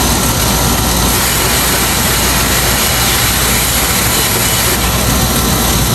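Outdoor air-conditioner condenser unit running, its fan and compressor making a loud, steady whoosh over a low hum, while the unit is being washed down with a garden hose.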